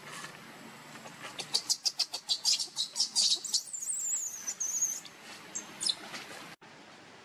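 Baby macaque screaming: a quick run of shrill squeaks, several a second, then a long wavering squeal and one more short cry.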